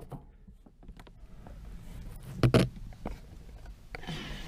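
Handling noise from a camera being picked up and moved: low rubbing and small knocks on the microphone, with one louder bump about two and a half seconds in.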